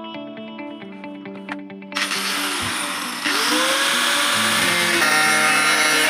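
A power grinder's abrasive disc sanding the surface of a PVC pipe: a loud hiss of grinding that starts about two seconds in and grows louder about a second later, over guitar music.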